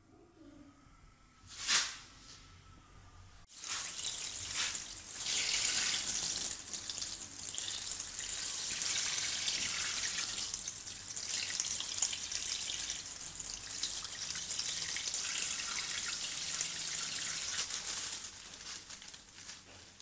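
Tap water running in a steady hissing stream onto raw chicken necks in a stainless steel sink, starting suddenly about three and a half seconds in and fading out shortly before the end. A single brief sharp sound comes about two seconds in, before the water starts.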